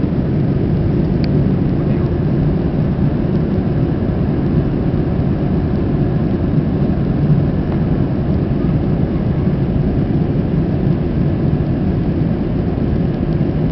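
Steady roar of an Airbus A321's jet engines and rushing air, heard inside the passenger cabin during the takeoff and climb.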